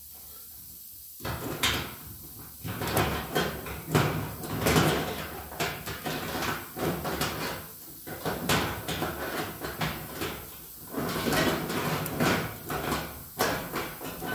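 Locking-pliers clamps clinking and clanking against a sheet-metal panel as they are handled and adjusted, a run of irregular metallic knocks starting about a second in.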